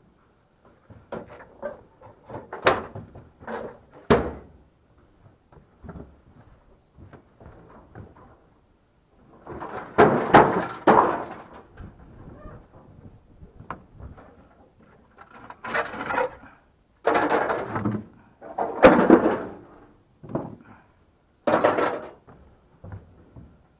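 Irregular knocks and longer scraping, clattering noises as heavy objects are pushed and shifted by hand, with sharp knocks in the first few seconds and the longest, loudest scrapes about ten seconds in and again in the second half.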